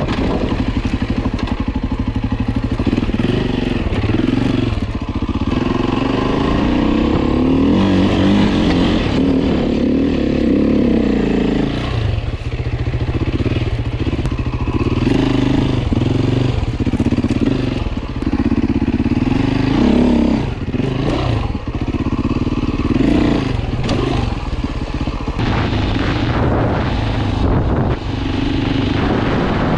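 Beta RR 450 four-stroke single-cylinder enduro dirt bike running under way, heard from the rider's seat. The revs climb and drop again and again as the throttle is worked, with a long pull between about 7 and 12 seconds in.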